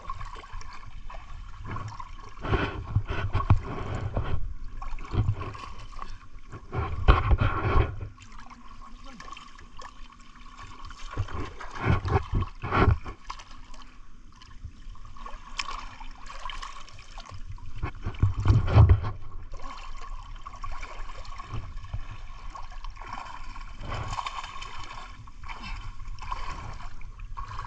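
River water sloshing and splashing as people wade and crawl through it, with irregular louder sloshes about 3, 7, 12 and 19 seconds in.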